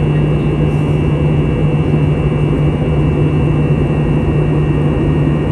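Steady cabin noise inside an Airbus A321-200 in flight: its IAE V2500 turbofan engines running at steady power, with a constant low hum under a rushing airflow hiss.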